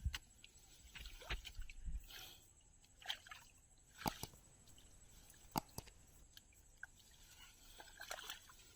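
Faint, scattered splashes and sloshes of shallow drain water being worked by hand, with a few sharper splashes about four and five and a half seconds in.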